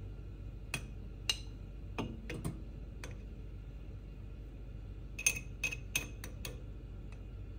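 Spoon clinking against a metal moka pot and its filter basket as ground coffee is spooned in, heard as scattered light taps and clicks with a quick run of them about five seconds in.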